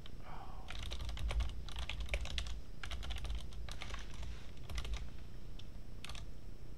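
Typing on a computer keyboard: quick runs of keystrokes, a pause, then a last short run about six seconds in.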